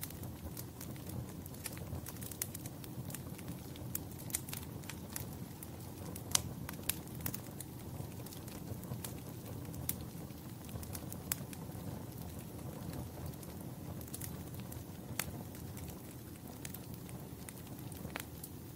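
Wood fire crackling: a steady low rumble of burning with irregular sharp pops and snaps scattered throughout, the loudest pop about six seconds in.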